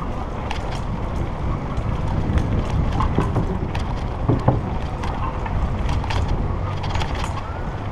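Rumble and rattle of a mountain bike rolling over the wooden ties of a railway trestle, with scattered clicks and knocks, and wind buffeting the microphone.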